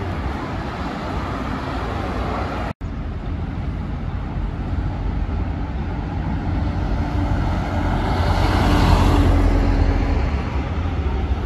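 Busy city street traffic, with a short dropout where the recording cuts about a quarter of the way in. Later a road vehicle passes close, swelling to its loudest about three-quarters of the way in and then fading.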